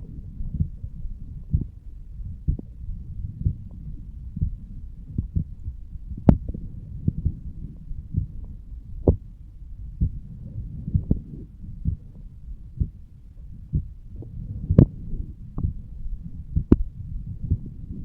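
A human heartbeat recorded over the aortic valve area: steady lub-dub beats about once a second over a low rumbling, which the recorder takes for blood flowing through the heart. A few beats land as sharper clicks.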